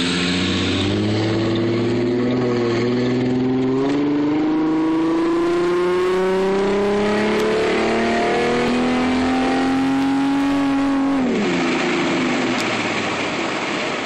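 2007 Ford Mustang's 4.0-litre V6, with shorty headers and a single exhaust without mufflers, accelerating hard uphill, heard from inside the car. The engine note climbs with the revs, dips briefly about four seconds in, climbs steadily again for about seven seconds, then falls away sharply near the end as road and wind hiss take over.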